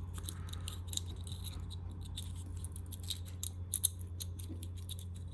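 Small clicks and light rattling of a turn-signal mounting bracket and its wires being handled, with a sharper click a little before four seconds in, over a steady low hum.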